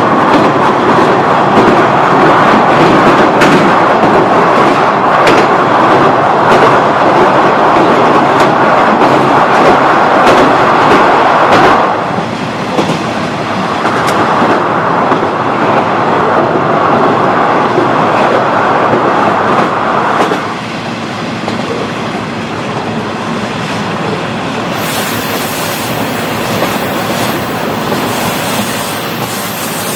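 KiHa 40 diesel railcar's original DMF15HSA engine and running gear, heard from on board: a loud engine drone with wheels clicking over rail joints. The sound falls sharply about twelve seconds in and drops again around twenty seconds in.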